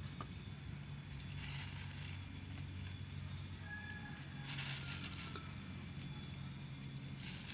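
Flower petals being scattered by hand, rustling in short bursts a few seconds apart, over a low steady hum.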